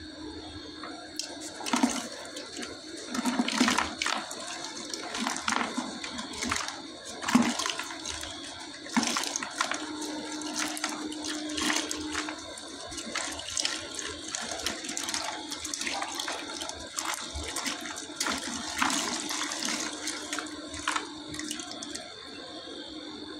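A block of compressed white sand crumbling in the hands, dry sand running and spilling into a plastic bucket in irregular crunches and rushes of grains.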